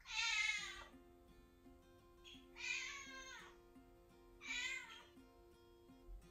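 Scottish kitten meowing three times, each cry under a second and about two seconds apart: a kitten left alone at home, crying at the closed door for its owner. Faint plucked background music plays underneath.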